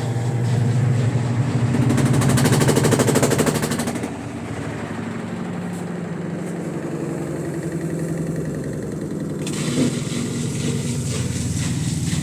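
Midea washing machine in its spin cycle, the drum humming with a fast rattling clatter that is loudest a couple of seconds in, eases to a steadier hum, and picks up again near the end. The rattle is a noise during spinning whose cause the owner could not find.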